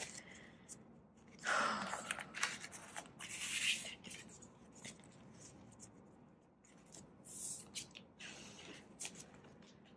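Polymer banknotes rustling and sliding as a stack of Canadian $100 bills is handled and slipped into a cash envelope, in a few short bursts with quieter gaps between.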